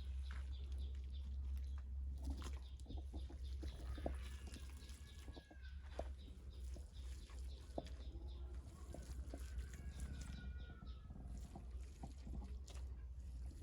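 Chickens clucking, with drawn-out calls about four and ten seconds in, over scattered wet squelches and clicks of mud being mixed by hand.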